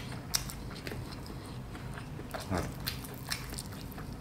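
Close-up chewing of juicy crispy fried chicken: wet mouth smacks and clicks scattered throughout, with a short hum from the eater about two and a half seconds in.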